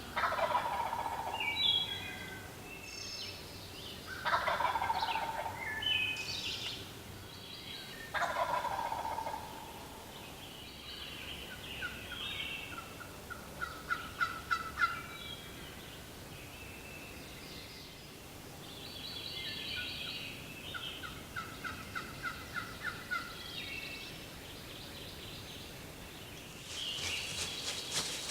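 Wild turkey gobbler gobbling from his roost, three loud rattling gobbles about four seconds apart in the first half, with other small birds chirping and trilling in between.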